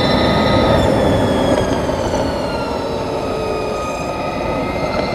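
Harley-Davidson LiveWire electric motorcycle's motor and drive whining at speed over heavy wind and tyre rush. The whine falls in pitch for a few seconds as the bike slows, then climbs again near the end as it accelerates.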